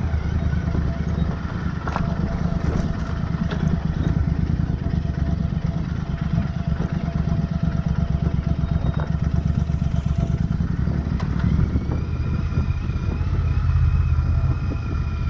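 Royal Enfield Interceptor 650's parallel-twin engine running steadily as the motorcycle rides down a rocky dirt trail, with a few short knocks from the rough ground.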